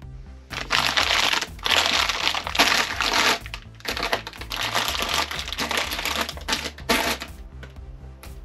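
Plastic bags of candy crinkling as they are handled and shifted on a table, in several loud bursts with short breaks, stopping about a second before the end. Soft background music plays underneath.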